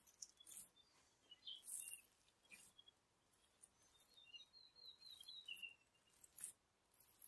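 Near silence, with faint high chirps, including a short run of them a little past the middle, and soft swishes now and then.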